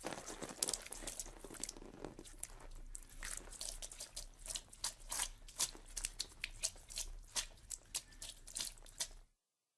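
Horror sound effect of crunching and tearing: a dense, irregular run of sharp cracks and crackles, several loud ones a second, like something being chewed or torn apart. It cuts off abruptly near the end.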